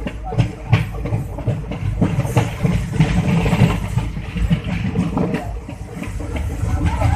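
Running noise of a moving passenger train heard from an open coach window: a steady low rumble of wheels on the rails, with many irregular knocks and rattles.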